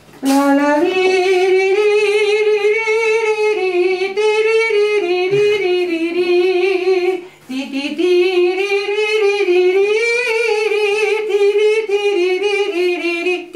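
A woman singing solo with a wide, even vibrato, holding long notes in two phrases with a brief breath about seven seconds in.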